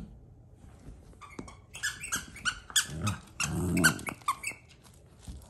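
Dog whining: a run of short, high squeaks, with a lower, longer whine about three seconds in.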